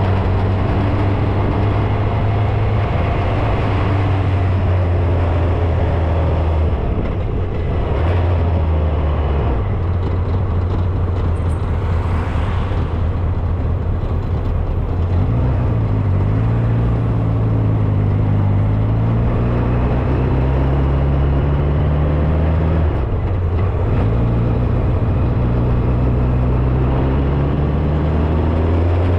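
Motorcycle engine running while riding, its pitch rising and falling a few times as the speed changes, over steady wind and road noise.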